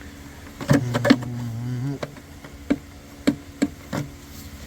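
Hard plastic intake parts knocking and clicking against their mounts as the pipe is worked into its rubber seats: a handful of separate sharp knocks spread over a few seconds, with a low hum lasting about a second early on.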